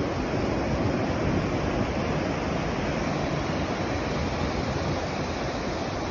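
Ocean surf washing onto a sandy beach in a steady rush, with wind buffeting the microphone.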